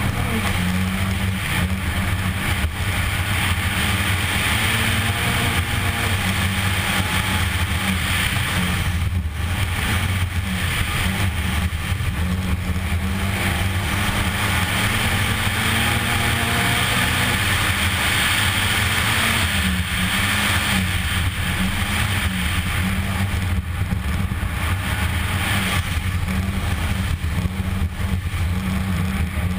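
Škoda Fabia R2 rally car's 1.6-litre four-cylinder engine running hard at speed on a gravel road, with a steady hiss of tyres on gravel. The engine note dips briefly a few times.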